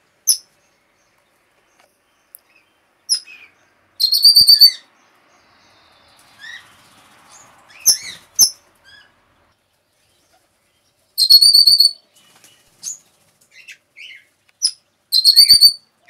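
Red-rumped parrot calling: three short bursts of rapid, high whistled notes, about four seconds in, at eleven seconds and near the end, with scattered short chirps between them.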